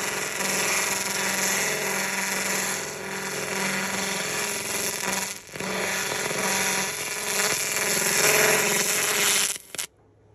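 JPT 300 W pulse laser ablating grease and carbon off a grill grate, vaporizing the grime down to shiny metal: a loud, steady hiss with a hum underneath. It drops out briefly about five and a half seconds in and cuts off suddenly near the end.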